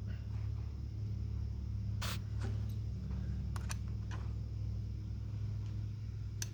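A steady low hum with a few sharp clicks: one about two seconds in, a pair around three and a half seconds, and one at the end.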